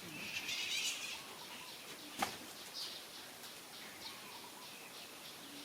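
Scattered high chirps from small animals, with a brief rasping squeal near the start and a sharp click about two seconds in.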